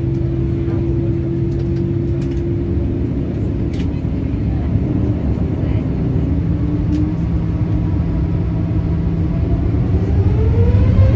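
Boeing 787-9's Rolls-Royce Trent 1000 turbofan engines running at idle thrust, a steady hum heard from inside the cabin. About ten seconds in, a whine starts rising and the sound grows louder as the engines begin to spool up.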